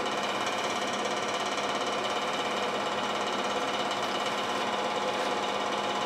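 Space heaters running together: a steady, unchanging mechanical drone with a constant hum.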